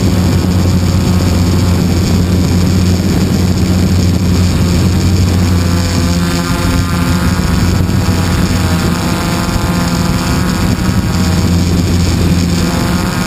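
Radio-controlled ring-wing model airplane flying, its motor and propeller droning steadily, with the pitch drifting slightly as it moves about the sky.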